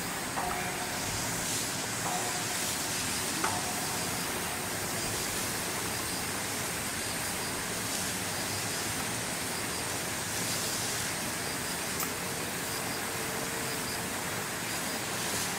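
Steady outdoor background hiss, with a few short faint calls in the first few seconds and a single sharp click about twelve seconds in.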